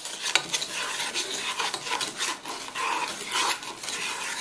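Wooden spoon scraping and stirring crumbly graham-cracker crust mixture around a metal pot, in repeated short scratchy strokes.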